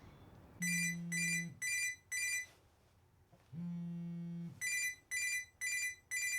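Mobile phone ringing: a group of four short electronic beeps about two a second, a pause, then another four, with a low steady buzz of the phone's vibration twice, about a second each.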